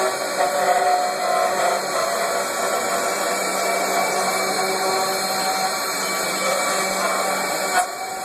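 A four-spindle, 4-axis rotary CNC router running, its spindles carving four wooden blanks turned on rotary chucks: a steady whine over cutting noise. There is one brief knock near the end.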